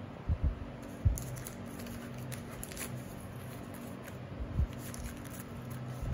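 Foil trading-card packs being picked up and handled, crinkling, with a few dull thumps against the table; the loudest thump comes about a second in.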